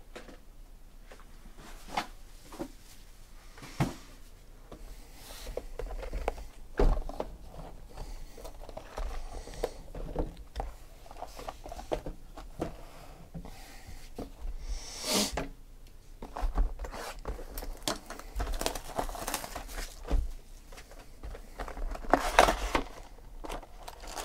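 Cardboard Panini Select football hobby boxes being handled and set down on a table, with a few separate knocks in the first seconds, then rustling, crinkling and tearing of packaging as a box is opened near the end.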